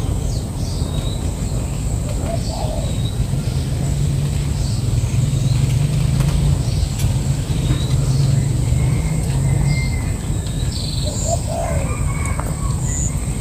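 Small birds chirping now and then over a steady low rumble that grows louder in the middle.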